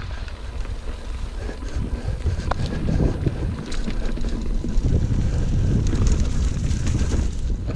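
Mountain bike riding down a leaf-covered dirt trail: wind buffeting the camera microphone over the rumble of the tyres on the ground, with scattered knocks and rattles from the bike.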